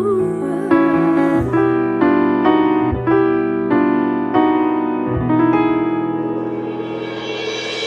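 Song outro on piano: a sung note trails off at the start, then chords are struck about every 0.6 to 0.7 seconds, ending on a long held chord that slowly fades.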